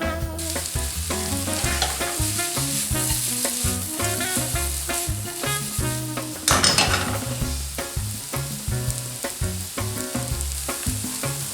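Sliced onions sizzling as they fry in a pan, stirred now and then, with a louder surge of sizzling about six and a half seconds in.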